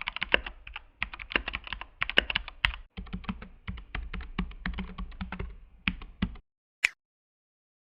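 Fast typing on a Keychron mechanical keyboard: a quick, uneven run of key clicks that stops about two thirds of the way in, followed by a single lone click near the end.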